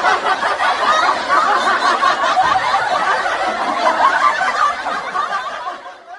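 Laugh-track audience laughter: many people laughing together in a dense, continuous wash that fades out near the end.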